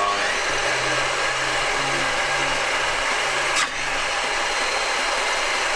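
Table saw running steadily, a loud even whir with a low hum, with one brief sharp sound about three and a half seconds in.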